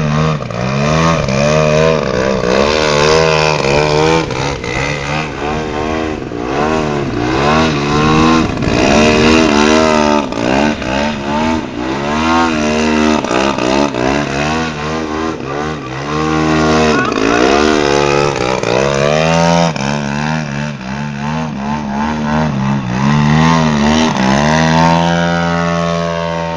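Engine and propeller of a large-scale 3D aerobatic RC plane, throttled up and down hard so the pitch keeps swooping up and falling away. Near the end it settles into a steadier, higher held note.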